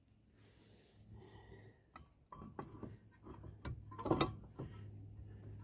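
Metal brake parts clinking and knocking against the wheel hub as they are fitted back on by hand: quiet at first, then a series of sharp clicks and knocks from about two seconds in, the loudest a little after four seconds.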